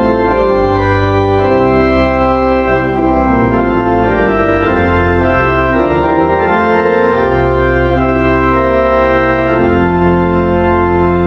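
Organ playing sustained chords that change every second or so over low bass notes; the bass drops out briefly and returns about seven seconds in.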